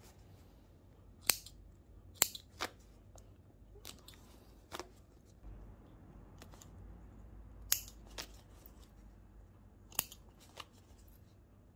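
Small scissors snipping thread, about eight sharp snips at irregular intervals a second or two apart, with faint fabric rustling between. They are cutting the stitching that holds the old zip in the dress.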